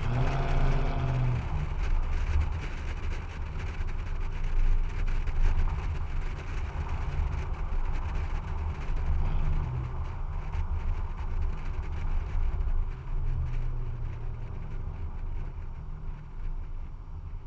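2014 Toyota Tundra's 4.6-litre V8 running through a straight-pipe exhaust that replaces the stock muffler, heard from outside the moving truck. The engine note swells in the first second or two and again about thirteen seconds in, with wind buffeting the microphone.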